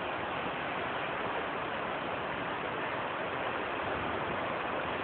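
Steady rushing of water churned up by a cruise ship's propeller wash.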